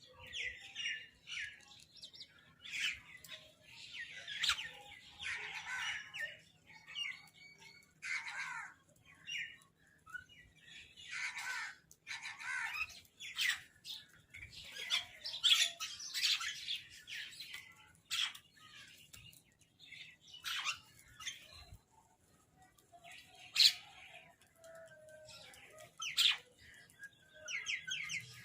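Crows calling, many short calls coming irregularly and overlapping one another.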